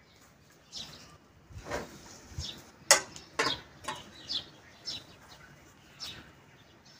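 Birds chirping in short, repeated falling calls, with a few sharp knocks about halfway through, the loudest sounds here.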